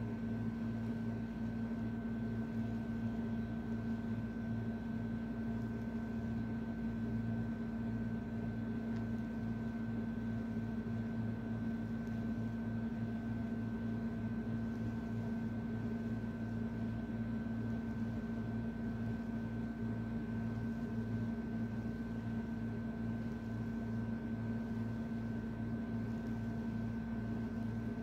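A steady machine hum with a few fixed tones and no change in pitch or level.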